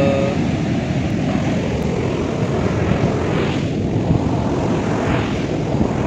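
Heavy wind buffeting the microphone over the rush of surf breaking on a sandy beach, a dense rumbling noise with no clear pitch.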